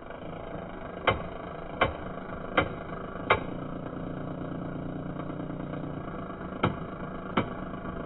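A small motor running steadily with sharp, evenly spaced clicks about three-quarters of a second apart: four in a row, a pause, then two more near the end.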